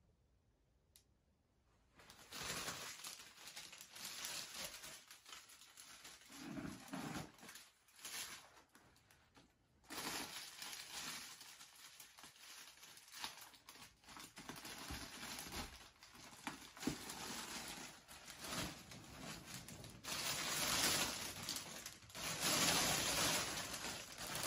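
Gift wrapping or packaging rustling and crinkling as a present is unwrapped, in irregular stretches starting about two seconds in.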